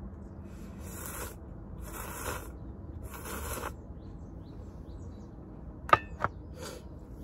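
Ramen noodles and broth slurped from a stainless steel cup, three slurps about a second apart. Near the end come two sharp metal clinks as the stainless cup is set down on the mess tin.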